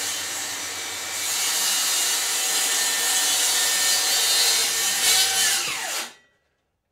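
DeWalt cordless circular saw coming up to speed and crosscutting a plywood panel along a guide for about five seconds. The motor then winds down and stops about six seconds in.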